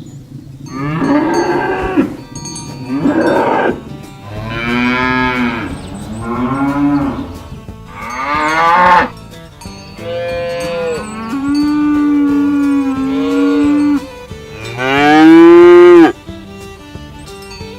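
Cattle mooing, about seven long calls one after another, the last one the loudest.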